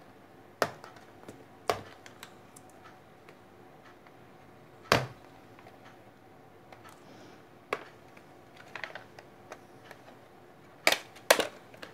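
Packaging handled by hand on a tabletop: about half a dozen scattered sharp clicks and knocks, two in quick succession near the end, with a little soft rustling of wrapping.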